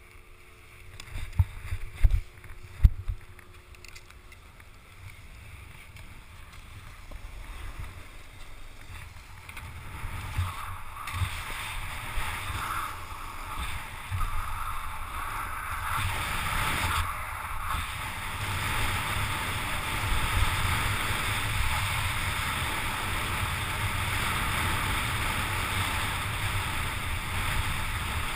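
Snowboard sliding over groomed, hard-packed snow: a hiss of the board on the snow mixed with wind noise on the camera's microphone, building as speed picks up about ten seconds in and then running steadily. A few loud knocks near the start.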